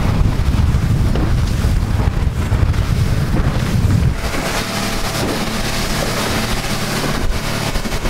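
Wind buffeting the microphone on a fishing boat running at speed. About four seconds in, this gives way to the steady drone of the boat's 200 hp outboard motor under a hiss of water.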